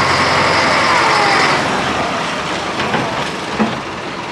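Narrow-gauge diesel locomotive's engine running loudly as it hauls a coach past, the engine noise dropping away about a second and a half in. Softer running and a few clicks from the wheels follow.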